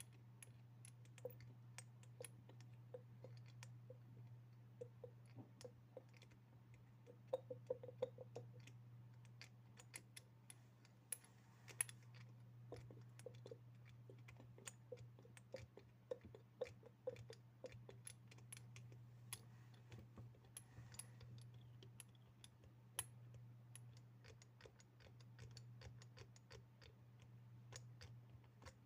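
Fingers tapping and knocking on assorted hard objects for ASMR: quiet, irregular taps and clicks, some with a short hollow ring, with quick flurries of taps about a third and again just over half of the way through. A steady low hum runs underneath.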